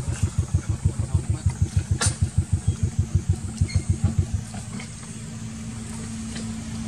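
An engine running nearby: an even low thumping of about six pulses a second for the first four seconds or so, then settling into a steady low hum.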